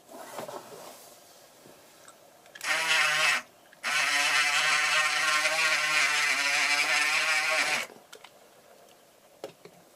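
Small electric motor of a LEGO model train's automatic sliding door whining as it drives the door: a short run of under a second as the door opens, a brief pause, then a steady run of about four seconds as it closes.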